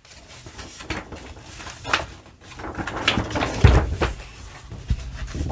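A large folded paper poster being unfolded by hand: stiff paper rustling, crackling and flapping as the folds are opened, with a dull thump about three and a half seconds in.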